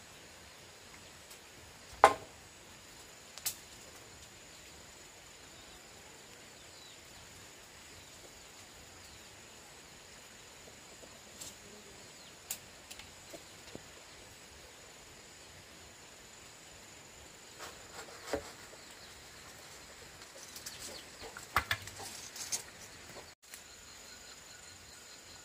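Scattered sharp knocks and taps from hand building work, the loudest about two seconds in and a quick cluster of them near the end, over a steady faint high insect trill.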